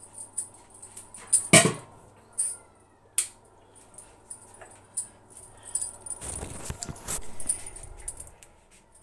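Household handling sounds: a few sharp clinks and knocks, the loudest about a second and a half in, with light metallic jingling. Then, from about six seconds in, rustling and bumping as the phone is picked up and carried.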